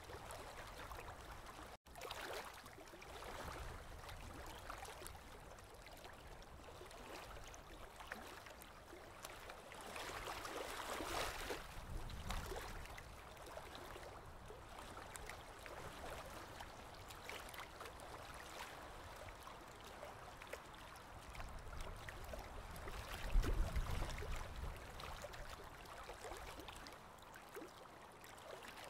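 Aquarium water circulating, a steady faint trickling and gurgling. It cuts out for an instant about two seconds in, and there is a low rumbling thump a little before the end.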